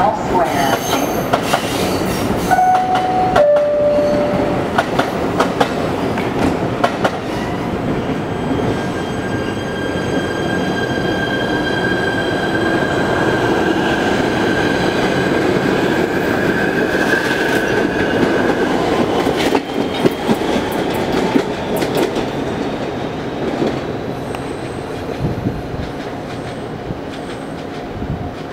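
Kawasaki PA-5 PATH train departing a station: a two-note falling door chime about three seconds in, then the train pulls away with its motors whining and rising in pitch and the wheels clacking over rail joints, fading as it leaves.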